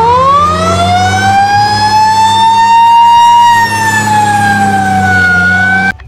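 Fire engine siren wailing: one long tone that rises slowly in pitch, then sinks a little, over a steady low hum, and cuts off suddenly near the end.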